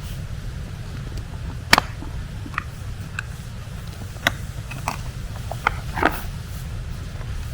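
Small clicks and knocks of camping cooking gear being handled, about ten in all, the loudest about two seconds in and near six seconds. A steady low rumble runs under them.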